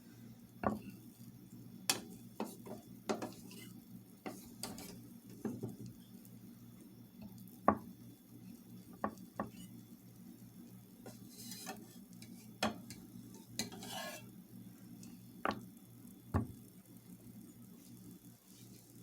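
Kitchen utensils knocking and clinking against dishes and pans: a dozen or so separate taps and clacks with a couple of short scrapes, over a low steady hum.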